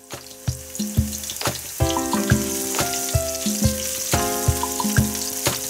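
Chopped onion sizzling in hot olive oil in a nonstick pan, stirred with a wooden spatula. Background music runs underneath, with held chords and a steady beat of about two thumps a second.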